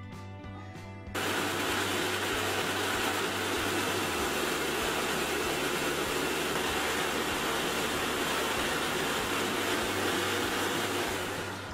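Electric mixer grinder running steadily, grinding karonda berries with coriander, garlic, green chillies and ginger into a wet chutney paste. It starts about a second in and stops just before the end.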